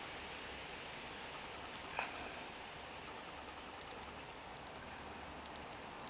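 Short, high-pitched electronic beeps, about six of them at irregular intervals, with one light click about two seconds in. The beeps come as the buttons of a Sima remote control are pressed.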